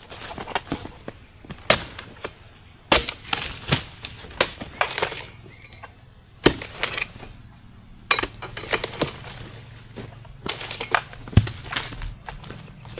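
Repeated chopping strikes of a long-handled harvesting chisel (dodos) hacking into oil palm fronds, with the rustle and crackle of the fronds, coming in about half a dozen bursts of several blows separated by short pauses.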